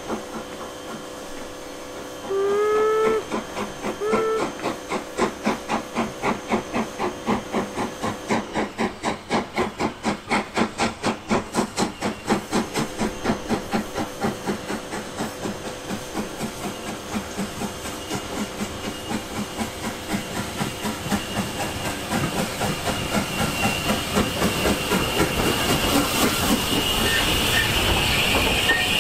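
Steam locomotive whistle, one blast of about a second then a short second toot. Then comes a steady, regular rhythm of exhaust chuffs, and a steam hiss grows near the end.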